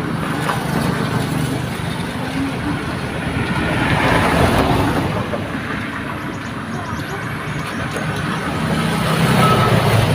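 Motor vehicle engines and road noise rumbling steadily, swelling twice as vehicles pass.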